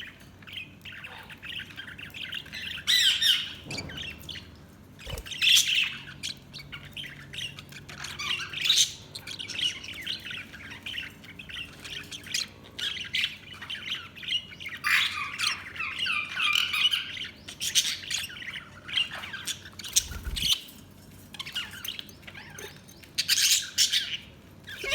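Budgerigars chattering throughout, a steady warble of chirps with louder squawks every few seconds.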